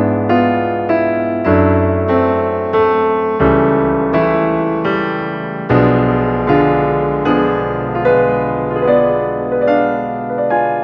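Background piano music: a gentle melody of notes struck about twice a second, each fading away, over low bass notes that change every second or two.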